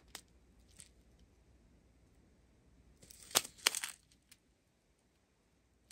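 Small plastic bags of resin diamond-painting drills crinkling and rattling as they are handled: a sharp click at the start, a few faint ticks, then a short burst of crisp crinkling about three seconds in, after which the sound cuts out.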